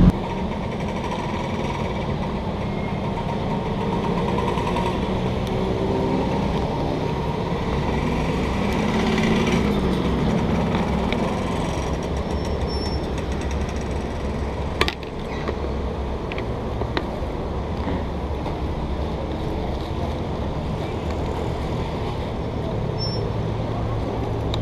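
Steady engine and traffic rumble, with a single sharp click about fifteen seconds in as the sport bike's fuel filler cap is unlocked with its key.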